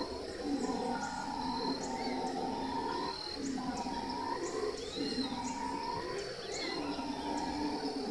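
A troop of howler monkeys calling in a long, pulsing chorus of roars, with a few birds chirping over it.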